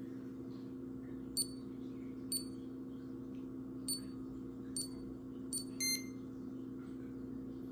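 Tandem t:slim X2 insulin pump beeping as its touchscreen is tapped: five short, high beeps about a second apart, then a slightly longer, fuller beep near the end. A steady low hum runs underneath.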